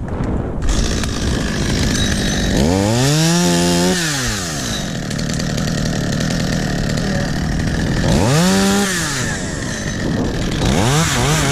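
Chainsaw running, revved up to full speed and back down about three seconds in and again about eight seconds in, then blipped several times in quick succession near the end.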